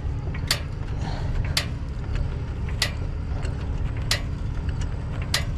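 Vehicle engine idling with a steady low rumble, while a sharp mechanical click repeats five times, about once every second and a quarter.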